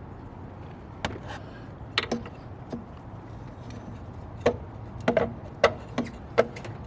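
Irregular sharp knocks and clacks of hard parts bumping together as an aluminum charge pipe is worked into place in a car's engine bay, about ten of them, coming thicker and louder in the second half.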